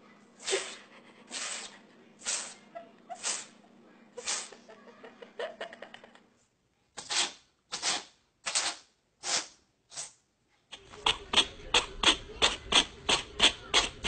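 Cats sneezing, short sharp sneezes about one a second in two separate runs. Near the end comes a faster run of short bursts, about three a second, over a low hum.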